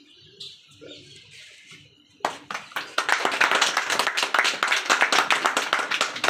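A small group of people clapping, starting suddenly about two seconds in and keeping up a dense, irregular patter of hand claps.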